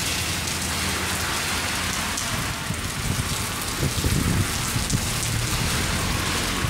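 Heavy rain pouring onto a wet asphalt parking lot as a steady, dense hiss. A brief low rumbling comes about four seconds in.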